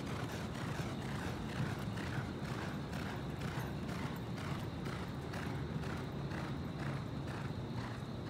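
Hoofbeats of a galloping thoroughbred racehorse on a dirt track, an even rhythm of about two strides a second, over a low rumble.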